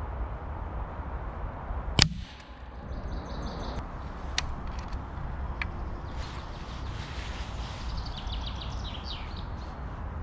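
One sharp, muted crack about two seconds in: a shot from a Hatsan Flashpup QE, a shrouded 6.35 mm PCP air rifle. It is heard over steady wind rumble, with short bird chirps later.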